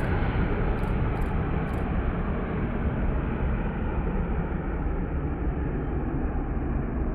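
Airbus A330 airliner's jet engines at takeoff thrust as it climbs away, a steady low rumbling noise slowly fading. A few faint high ticks about a second in.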